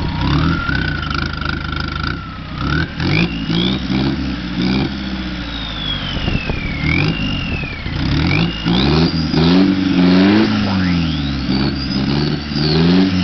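Die Moto's 2-litre four-cylinder BMW turbodiesel, running on biodiesel, revving up and down repeatedly, harder in the second half, with high squealing tones gliding up and down over it. Near the end the rear tyre spins into a smoking burnout.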